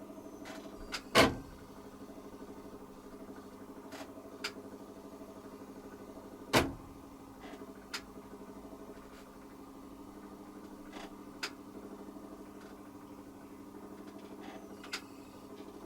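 Hoover Quattro System AE130 washing machine running, with a steady hum of several tones from the motor and drum. Two loud thumps come about a second in and near the middle, with several lighter clicks between them.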